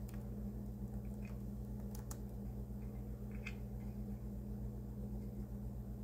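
Steady low hum with a few faint, scattered clicks of computer-keyboard typing.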